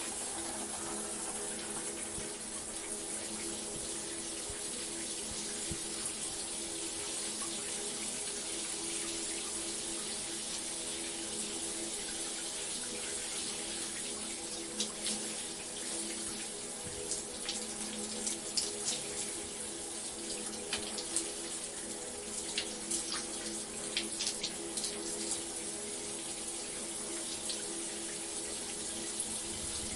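Shower running: a steady hiss of water spray, with sharper splashes and spatters in the second half.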